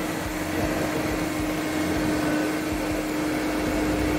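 Vactor sewer-cleaning vacuum truck's machinery running with a steady whir and a constant hum.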